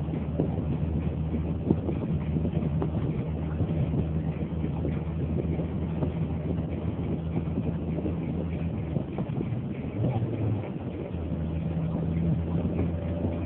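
Car engine and tyre noise heard from inside the cabin while driving: a steady low drone over road rumble. The engine note changes briefly about ten seconds in.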